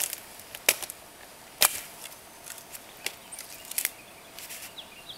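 Hatchet striking a thin dead standing tree: a handful of sharp, separate wooden knocks about a second apart. Near the end a bird starts chirping.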